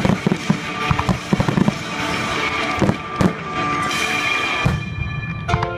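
Aerial firework shells bursting, a rapid string of sharp bangs in the first two seconds and a single loud bang about three seconds in, with more bangs near the end.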